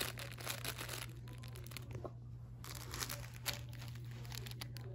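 Plush fried-egg toy crinkling and rustling as a mini Australian Shepherd puppy chews and paws at it, in an irregular run of small crackles that pauses for about half a second around two seconds in.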